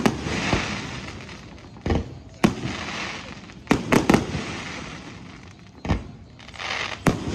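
Aerial fireworks shells bursting over a lake: about eight sharp bangs at uneven intervals, three in quick succession near the middle, with a hiss lingering after the bursts.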